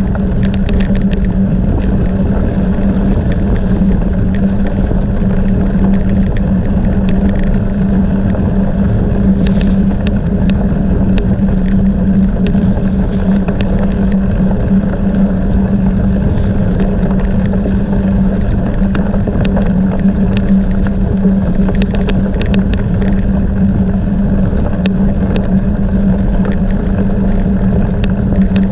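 Bicycle tyres rolling over a gravel track with wind buffeting the microphone: a steady low rumble and hum, with scattered small ticks of loose stones.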